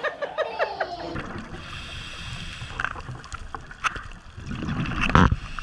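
A child's laughter fading out in the first second, then the muffled hiss of an underwater recording with scattered small clicks, swelling to a loud rush just before the end.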